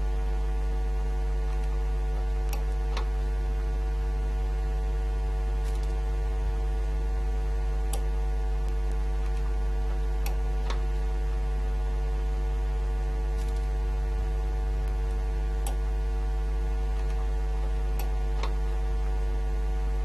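Steady low electrical hum with a few faint clicks scattered through it.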